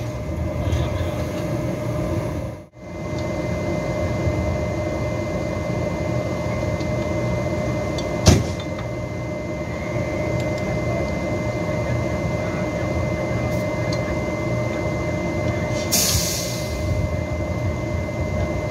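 Two coupled locomotives, a diesel and an electric, standing and running steadily with a hum and a thin high whine. A single sharp metallic clank comes about eight seconds in and a short hiss of air about sixteen seconds in, as the crew uncouple the locomotives.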